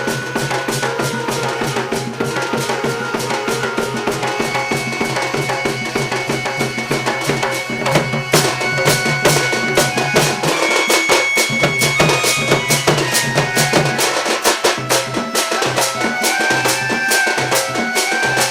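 Sambalpuri dand nacha music: fast, dense drumming under long held melodic notes, the drum strokes growing louder about halfway through.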